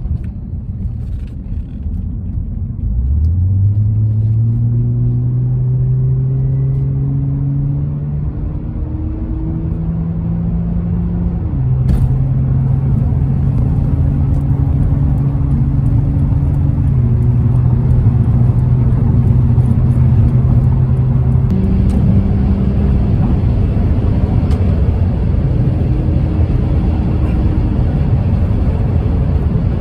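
An Acura TL's 3.2-litre V6 pulling away, its note rising for several seconds, then running at steady speed with small steps in pitch as the automatic transmission changes gear, over steady road rumble. This is a test drive after new 3rd and 4th gear pressure switches and a transmission reset, and the owner says it now shifts much more smoothly.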